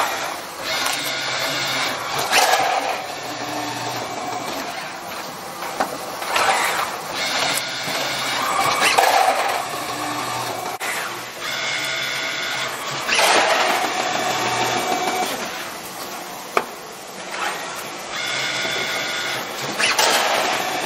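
GCL vertical case packing machine running: grippers and conveyors whirring and clattering in repeating cycles every few seconds, with a high whine in some stretches and a sharp click about two-thirds of the way through.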